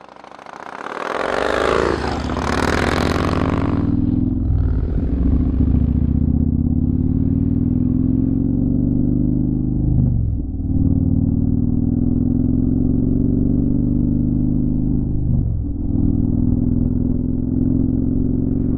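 Motorcycle engine accelerating up through the gears. A loud rushing rev fills the first few seconds, then the engine note climbs steadily, with a brief drop at each of three gear changes about 4, 10 and 15 seconds in.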